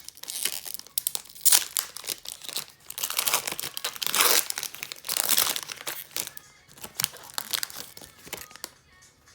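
A trading-card pack's plastic wrapper being torn open and crinkled by hand, a dense irregular crackling that dies away near the end.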